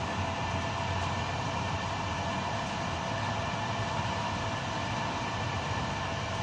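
Steady running noise of a moving intercity passenger train heard from inside its rear end: an even rumble and hiss of wheels on rail, with a few faint steady tones and no separate knocks.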